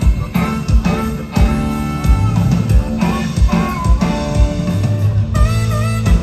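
Live country band playing: electric guitar and bass over a steady drum-kit beat. A lead line with bending, sliding notes comes in about five seconds in.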